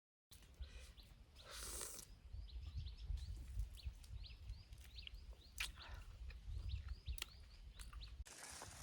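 Small birds chirping, many short high chirps in quick succession, with rustling noises near the start and the end and a low rumble underneath.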